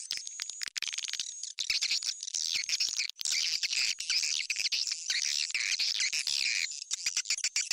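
Swiftlet call recording used as a lure sound for swiftlet houses: dense, rapid high twittering chirps and clicks that overlap continuously.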